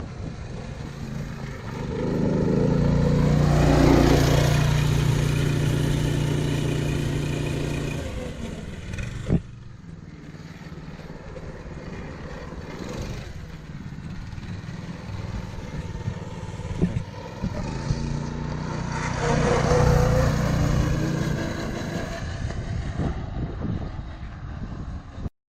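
Rebuilt Manco go-kart's small single-cylinder engine running as the kart is driven. The engine grows loud and fades away twice, with a lower hum in between. There is one sharp click partway through.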